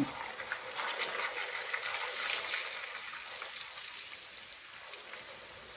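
Puri frying in shallow hot oil in a frying pan: a steady sizzling crackle of bubbling oil, loudest over the first few seconds and easing off toward the end.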